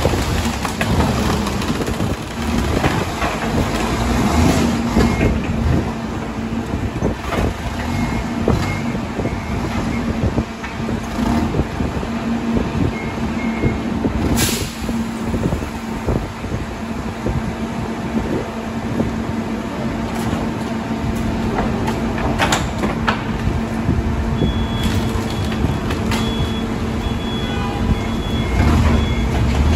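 Mack rear-loader garbage truck running with a steady hum while scrap plywood and wood pieces are thrown into its rear hopper, clattering and knocking. A sharp crack comes about halfway through, and a high intermittent beeping starts near the end.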